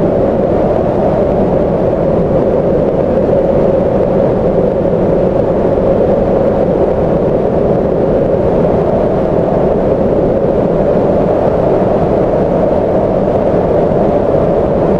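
Tornado winds blowing past, a loud steady noise with no breaks.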